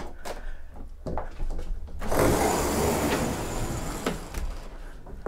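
A boat's overhead sliding roof panel being opened by hand. A few latch clicks come first, then the panel slides back with a rushing rumble from about two seconds in for about two seconds, ending in a knock as it stops.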